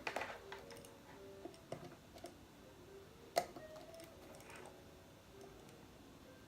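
Faint scattered clicks and taps from handling small parts, wires and tools at a workbench, with one sharper click about three and a half seconds in.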